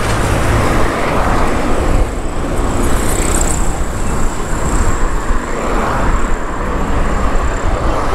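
City street traffic: motor vehicles running along the road in a steady rumble of road noise.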